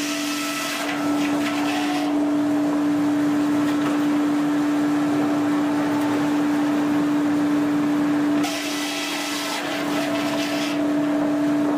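Sawmill machinery running with a steady hum. Louder hissing noise comes over it in stretches: in the first two seconds, for about two seconds starting about two-thirds of the way in, and again near the end.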